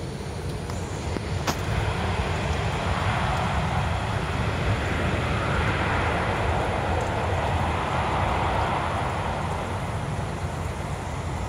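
Distant jet noise from a Boeing 737-800's CFM56-7B turbofans as the airliner rolls out on a wet runway after touching down. The noise swells for several seconds and eases off near the end, over a steady low rumble.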